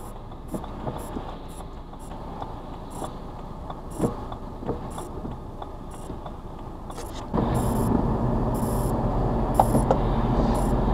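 Dashcam audio inside a car: a low engine hum with faint, irregular ticks while stopped, then about seven seconds in an abrupt change to louder, steady road and tyre noise of a car driving on a wet road.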